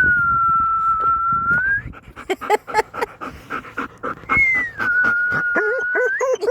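A person whistles two long notes, each dipping at the start, holding steady and rising at the end. Between and after them a dog pants quickly and gives short, repeated whimpers.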